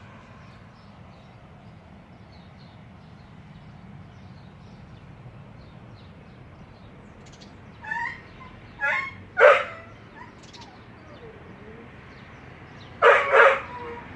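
A dog crying out in short, high-pitched yelps: three in quick succession about halfway through, the last the loudest, then two more close together near the end.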